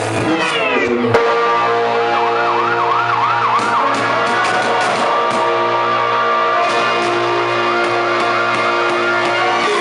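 Hip-hop instrumental beat with held synth notes, over which a wavering, siren-like wail rises and falls again and again, first about two seconds in and again midway through.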